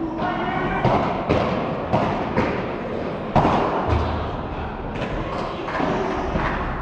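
Padel rally: the ball is struck back and forth with solid padel rackets and bounces on the court, giving a run of sharp knocks at irregular intervals of about half a second to a second.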